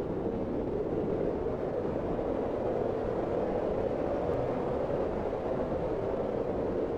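Snowstorm wind blowing steadily, a dense low rushing noise with no gusts or breaks.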